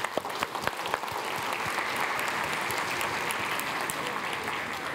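Large audience applauding, many hands clapping.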